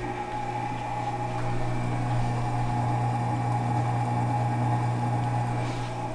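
Multo cooking robot running its deep-clean program, its motor humming steadily while it stirs soapy water in the stainless-steel bowl; the hum gets slightly louder about a second in.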